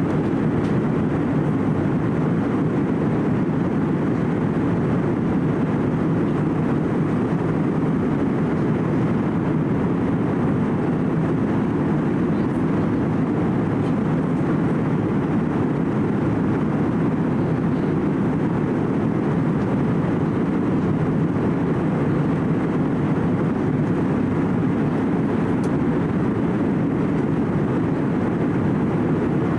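Steady cabin noise inside an Airbus A320-200 airliner in flight at altitude: a constant low drone of engines and airflow, even in level throughout.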